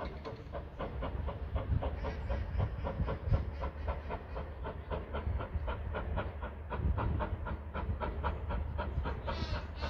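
USATC S160 2-8-0 steam locomotive working hard up a gradient, its exhaust beating in a fast, even rhythm of several chuffs a second over a low rumble.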